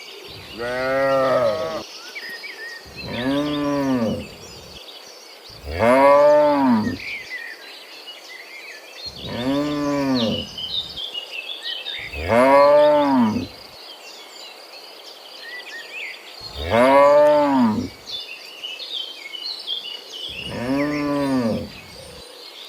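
Cattle mooing: seven long moos, each a second and a half to two seconds long, rising and then falling in pitch, spaced a few seconds apart.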